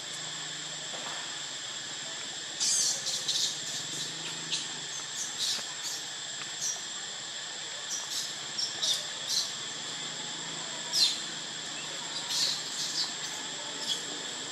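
Steady high-pitched insect drone, with many short, high chirps starting about two and a half seconds in.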